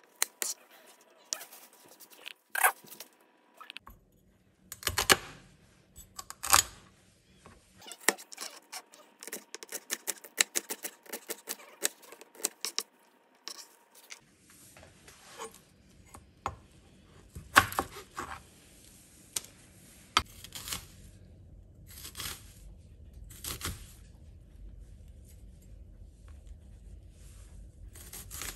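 Crofton chef's knife chopping carrot and onion on a plastic cutting board: sharp knocks of the blade through the vegetable onto the board, sometimes in quick rapid runs, sometimes as slower single cuts. A steady low hum runs underneath from about halfway through.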